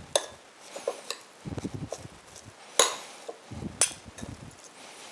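Two metal spoons tossing shredded Chinese cabbage salad in a small ceramic bowl, clinking against the bowl several times, loudest about three and four seconds in, with soft dull knocks in between.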